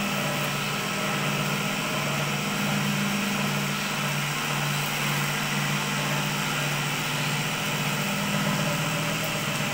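Cotton candy machine running, its motor giving a steady, even hum.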